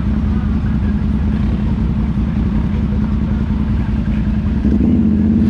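ATV engine running steadily while riding, its note stepping up louder near the end.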